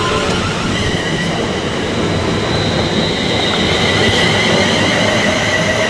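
Electric multiple-unit train running with a rumble of wheels on track and its traction motors whining in several steady high tones.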